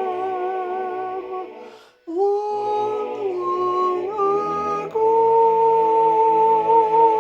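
A soprano voice singing wordless held notes with vibrato over a soft accompaniment. The first note fades out about two seconds in, a few stepping notes follow, and a long held note begins about five seconds in.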